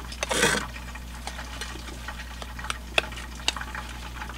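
Metal cooking utensil clicking and scraping against a frying pan as battered fish is lifted out, a few sharp clicks spread out, with a short hiss about half a second in. A steady low hum runs underneath.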